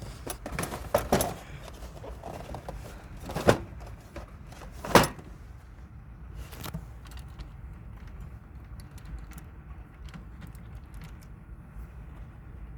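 Packaged die-cast toy cars being handled: a few sharp clicks and clacks, the two loudest about three and a half and five seconds in, then fainter ticks over a steady low hum.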